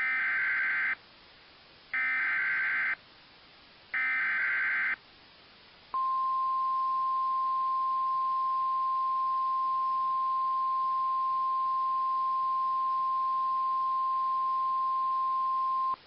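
EAS SAME header data: three warbling digital bursts of about a second each, a second apart. Then the NOAA Weather Radio 1050 Hz warning alarm tone holds steady for about ten seconds. Together they open a severe thunderstorm warning broadcast.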